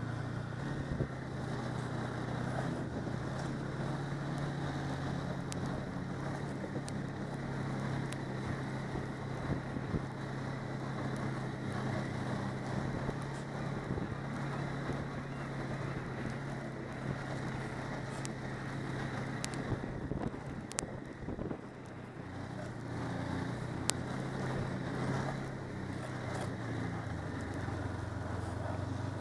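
Snowmobile engine running steadily with a constant hum while the machine rides along, heard from the snowmobile itself. It eases off briefly about three-quarters of the way through, then picks up again.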